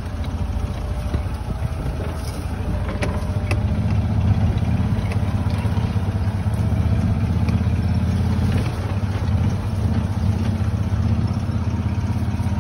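Side-by-side utility vehicle's engine running steadily as it drives along a rough dirt trail, a low drone with a few light clicks and rattles; it gets a little louder about four seconds in.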